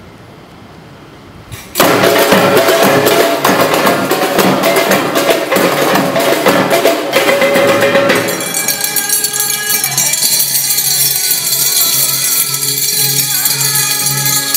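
Banyuwangi kidung lontar percussion ensemble starting loud about two seconds in: frame drums (terbang), barrel drums and wooden lesung rice mortars struck together in a dense rhythm. About eight seconds in it changes to ringing triangles and held tones over a steadier, lighter beat.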